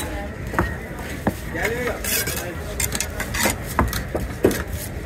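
A knife striking and clacking on a cutting board as fish is cut up: irregular sharp knocks, about a dozen, with a voice heard briefly in between.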